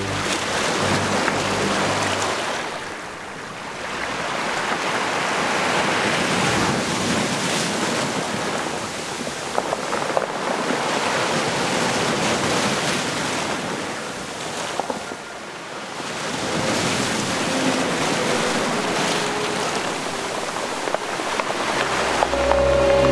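Sea waves breaking and washing up over a beach of smooth round pebbles, a steady rushing surf that swells and eases as each wave comes in. Music comes in near the end.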